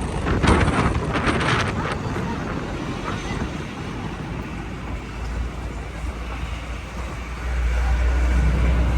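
Ride in a jeepney: wind buffets the microphone for the first two seconds, then a steady engine and road rumble carries on, growing louder and deeper about seven and a half seconds in.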